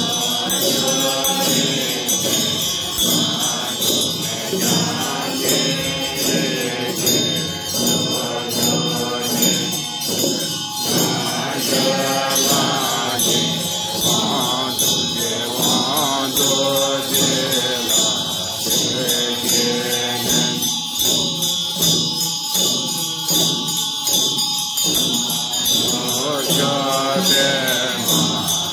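A group of Tibetan Buddhist practitioners chanting prayers in unison, with a steady beat on handheld nga drums and the ringing of hand bells.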